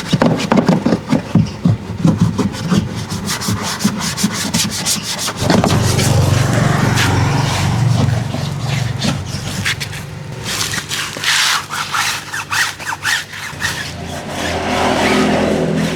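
Repeated scrubbing strokes, a brush or pad rubbed back and forth over the car's surface during cleaning. A steady low machine hum joins about five seconds in.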